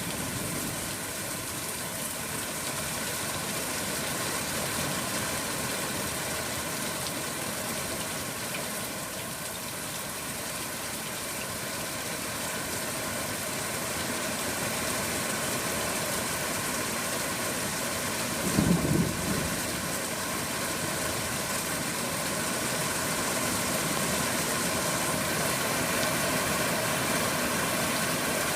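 Heavy thunderstorm rain falling in a steady hiss, with a brief loud low thump about two-thirds of the way in.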